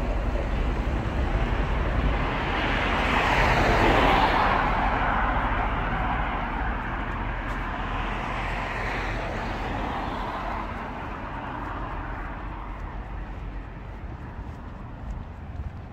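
A vehicle passing by: a rush of noise that swells to its loudest about four seconds in, then slowly fades away over a steady low city rumble.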